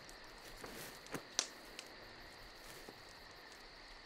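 Wood campfire crackling faintly, with a handful of sharp pops, the loudest about a second and a half in. Under it runs a steady high drone of night insects.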